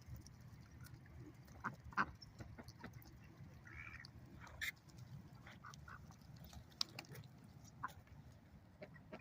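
Ducks quacking in short, scattered calls, a few sharper and louder than the rest, over a steady low rumble.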